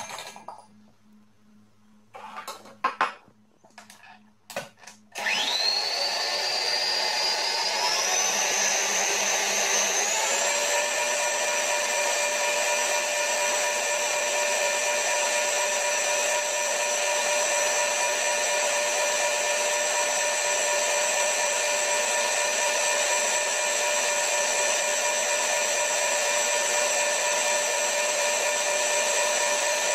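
A few clicks and knocks as the head of an electric stand mixer is lowered into place. About five seconds in, its motor starts with a whine that steps up in pitch twice as the speed is turned up, then runs steadily.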